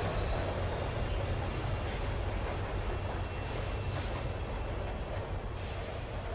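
Passenger train running: a steady low rumble of wheels on the track, with a thin high squeal of the wheels from about a second in until about five seconds in.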